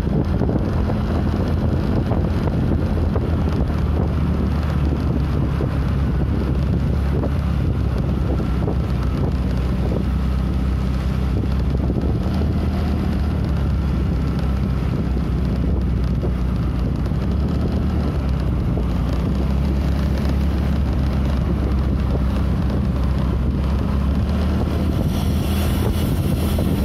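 Steady wind noise on the microphone over the even hum of a motorcycle engine riding at a constant pace.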